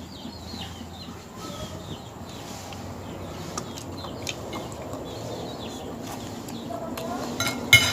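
Faint birds chirping in the background, and a quick run of sharp clacks near the end.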